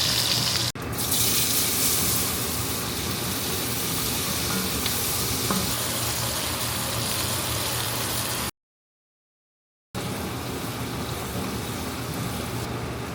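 Short ribs sizzling steadily as they brown in a hot pan. The sound breaks off briefly twice, once for about a second and a half.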